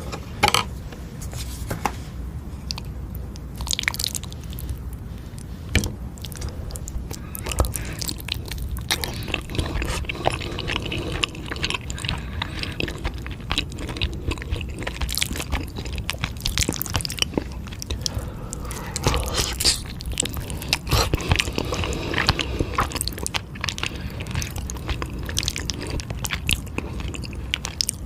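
Close-miked eating of eel with spicy fire-chicken noodles: a person biting and chewing, heard as a dense run of short clicks and snaps.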